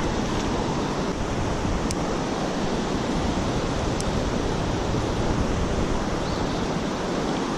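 Steady rush of creek water running over a shallow riffle, with some wind buffeting the microphone.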